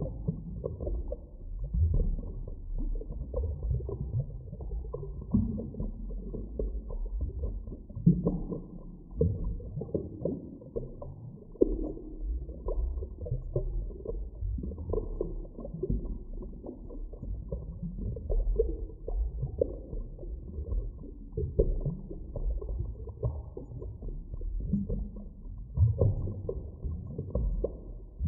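Underwater ambience: a continuous low, muffled rumble of deep water that swells and ebbs irregularly, with nothing above a low pitch.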